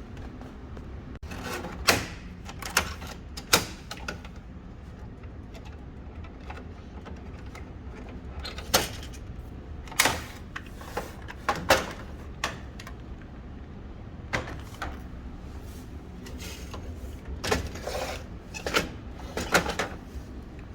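About a dozen sharp clicks and knocks at irregular intervals, some in quick pairs, over a steady low hum.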